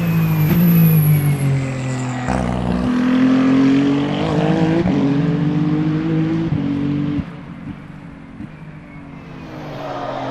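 Race car engine at high revs, its pitch climbing in steps through several gear shifts. About seven seconds in the sound drops away abruptly and goes quieter, then a racing engine builds again near the end.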